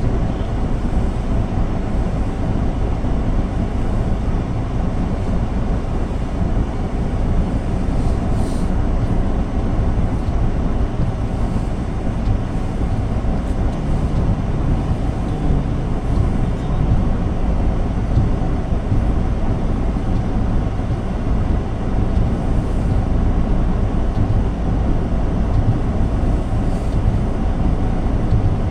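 Car driving at a steady speed: a steady low rumble of engine and tyre noise on the road.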